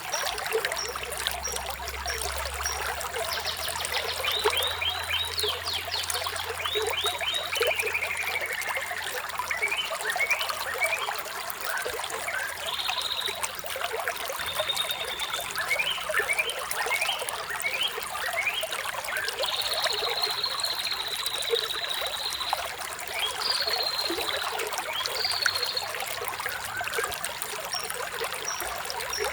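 Running water trickling steadily, with birds singing over it. A run of quick descending chirps comes a few seconds in, then scattered short whistled notes and one long held whistle about two-thirds of the way through.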